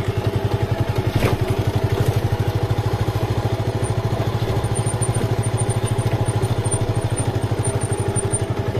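Motorcycle engine running steadily with a rapid, even beat. There is one short click about a second in.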